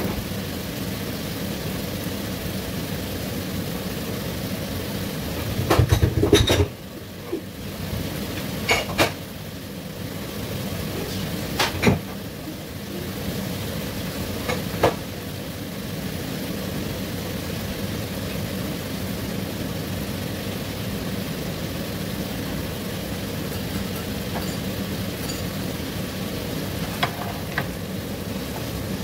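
Squid tentacles frying in a nonstick pan, a steady sizzle and hiss. A few knocks and clatters of the pan and utensil come through, the loudest about six seconds in, and a wooden spatula starts stirring near the end.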